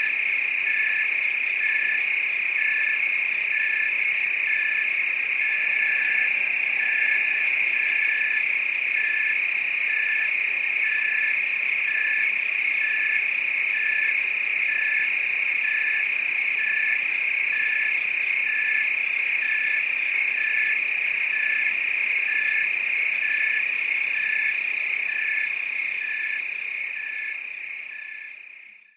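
Night chorus of crickets and frogs: a steady high-pitched insect trill with a lower pulsed call repeating about once a second. It fades out over the last few seconds.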